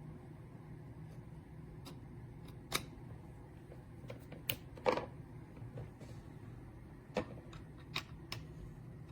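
Irregular small clicks and taps of objects being handled, about a dozen spread over several seconds, over a faint steady hum.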